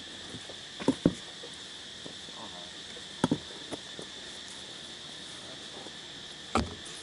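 A steady, high-pitched chorus of insects drones in the trees. A few sharp knocks break over it: two about a second in, two close together at about three seconds, and one near the end.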